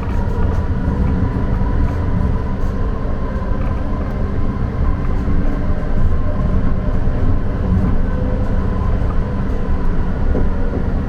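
Interior of an O-Train light-rail car running along the track: a steady low rumble with a faint steady whine over it.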